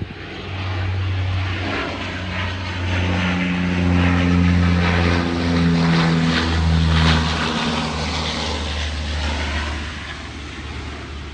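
A military airplane flying low overhead: a steady engine sound that builds, is loudest a little past the middle, and fades toward the end.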